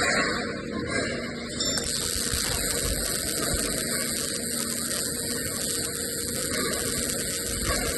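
MIG welding arc crackling and buzzing steadily.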